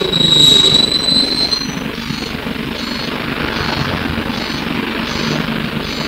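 Inside a MAN SL200 city bus on the move: steady engine and road noise, with a high squeal that stops about a second and a half in.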